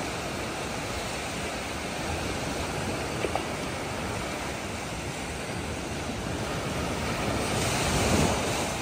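Sea surf washing up a sandy beach, a steady rush of water with one wave breaking louder near the end.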